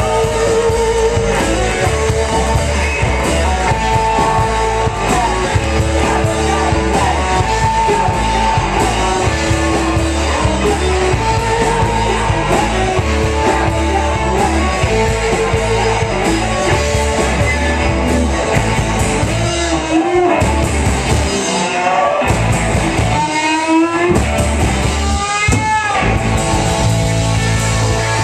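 Live rock band playing: distorted electric guitars, bass and drums with a woman singing held notes. Near the end the drums and bass drop out a few times for short breaks filled with rising slides.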